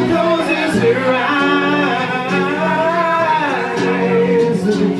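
Rock band playing live, with a singer's voice over guitar.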